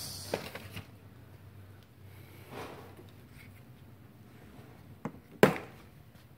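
A few faint clicks from equipment being handled on a workbench, then one sharp, loud click about five and a half seconds in; otherwise quiet room tone.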